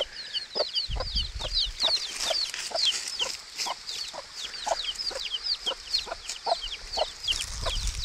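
Newly hatched chicks peeping nonstop in quick, high, falling notes, with their mother hen giving short low clucks about once or twice a second.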